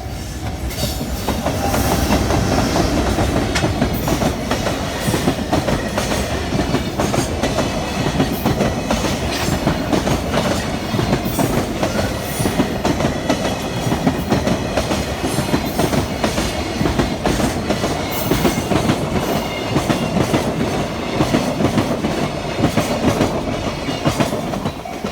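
Freight train wagons rolling through a level crossing, the wheels clacking continuously over rail joints. The noise builds over the first two seconds, stays loud, and drops off near the end as the train clears.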